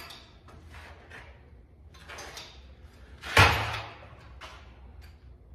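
Light clatter of pipe fittings and tools being handled, with one loud clunk about three and a half seconds in as something is set down hard.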